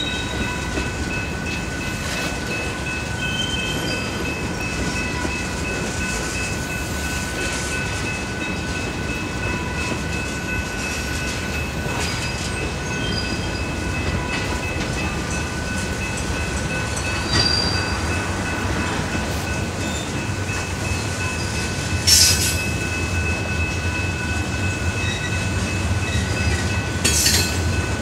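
Freight cars of a passing train rolling by: a steady rumble of steel wheels on rail with a thin, steady high-pitched squeal over it. Two sharp clanks come near the end.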